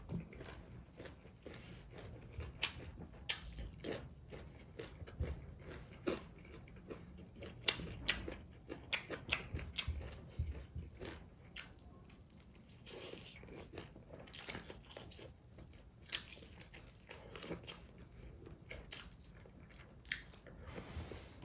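A person biting and chewing crunchy food, with many short, irregular crunches and mouth clicks.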